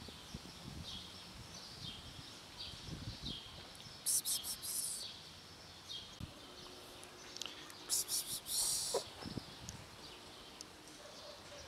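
Small birds chirping faintly in the background, with two short, louder rasping bursts about four and eight seconds in.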